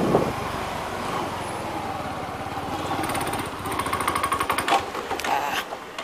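Small motorcycle engine running with a rapid, even pulse as the bike slows, the wind on the microphone dropping away. A couple of sharp clicks near the end.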